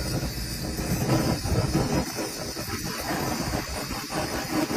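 Gas torch flame burning with a rushing hiss, preheating the end of a cable stress control body.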